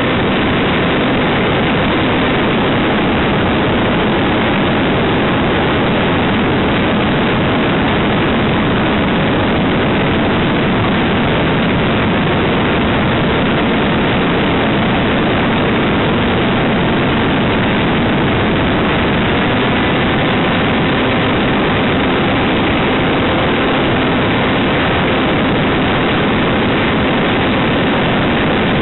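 Quarter-scale model aircraft in flight, heard from on board: a loud, steady, unbroken rush of engine, propeller and wind noise.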